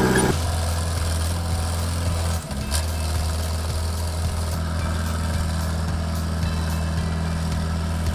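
Engine of a forestry machine running steadily, with a brief drop about two and a half seconds in.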